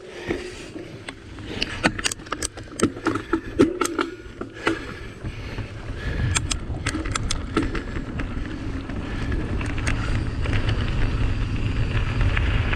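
Mountain bike ridden over a rough trail: a run of sharp knocks and rattles from the bike over the first five seconds, then a steady low rumble of tyres and wind on the microphone.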